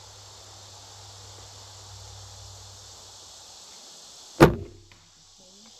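A single sharp bow shot about four and a half seconds in: the string's release and the arrow's hit on a foam 3D deer target, fading quickly. Under it runs a steady high hiss of insects.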